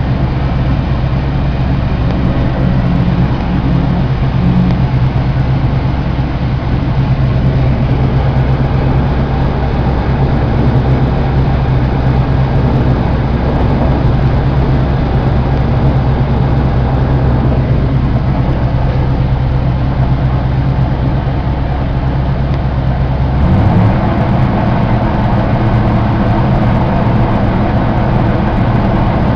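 New Holland TR70 combine running steadily while harvesting corn: a continuous drone of the engine and threshing machinery. Near the end the drone changes abruptly to a different steady pitch.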